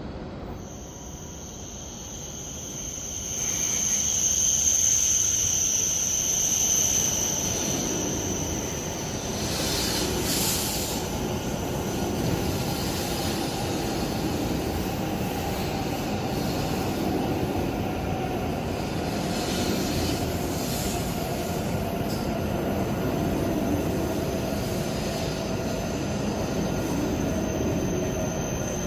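A Hokuriku Shinkansen Hakutaka bullet train pulling into the platform: a steady high whine over the rumble of the cars rolling past, which gets louder about three seconds in as the train arrives alongside.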